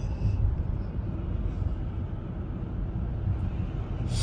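Steady low road and tyre rumble heard from inside a car's cabin while it drives at highway speed.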